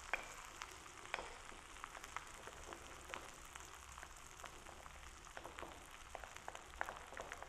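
Onion-tomato masala frying in hot oil in a pan: a faint steady sizzle with many small scattered crackles and pops.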